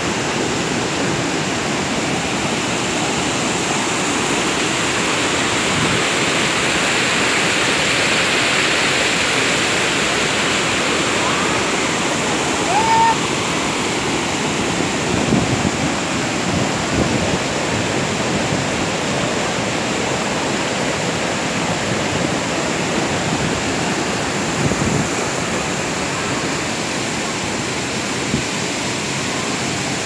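Tad Yuang waterfall pouring over rock ledges close by: a steady, loud rush of falling water.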